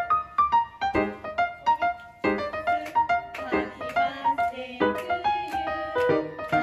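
Background music: a lively piano melody of short, quickly fading notes, several a second.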